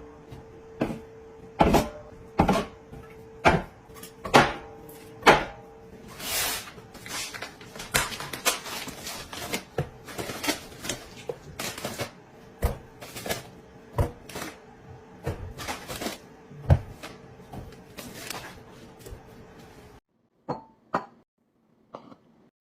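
Household containers and packaging being handled and set down while restocking: a string of irregular knocks, clicks and rustles over a steady hum. The sounds stop abruptly near the end, leaving only a couple of faint clicks.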